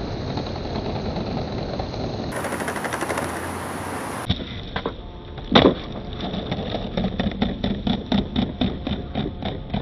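Skateboard wheels rolling on concrete, then a rapid run of sharp clicks and knocks, about four a second, with one louder knock.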